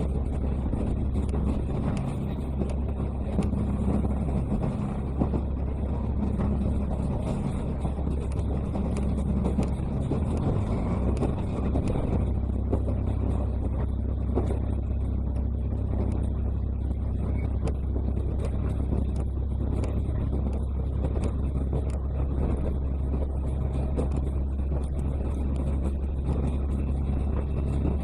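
Diesel railcar heard from inside while running: a steady low engine drone under the rumble of the wheels on the rails, with light clicks throughout. The low drone shifts slightly about twelve seconds in.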